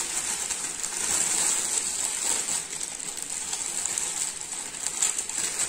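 Thin clear plastic bag crinkling and rustling continuously as a camera lens is worked out of it by hand, a dense crackle of many small clicks.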